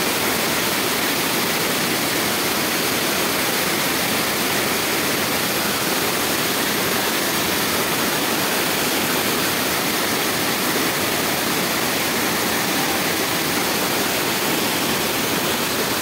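A tall waterfall falling onto rock, heard close up: a steady, very loud rush of water with no break. The flow is heavy, swollen by rain the night before.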